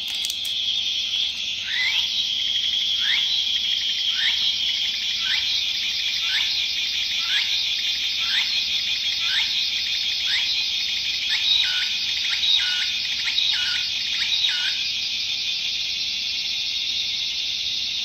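Four gachapon cicada-song toys played all at once: recorded songs of Japanese cicadas (minminzemi, tsukutsukuboshi, higurashi, kumazemi) overlap in a dense, steady shrill buzz, starting about half a second in. Over it a falling call repeats about once a second, turns into a different phrase pattern about two-thirds of the way through, and stops shortly after.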